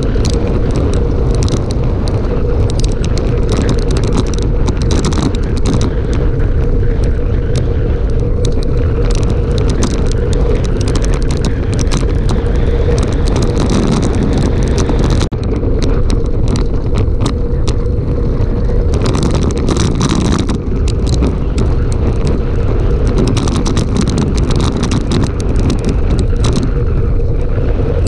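Loud, steady wind buffeting the camera microphone while descending a mountain road at speed, with a steady hum underneath; the noise dips for an instant about fifteen seconds in.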